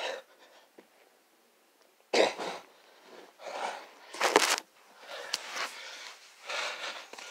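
A person breathing hard after push-ups: rough, forceful breaths starting about two seconds in, about one a second, with a short knock near the middle on the loudest breath.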